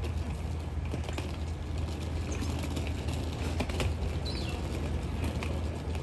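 Steady low hum of city background noise, with scattered light clicks and one short, high, falling bird chirp about four seconds in.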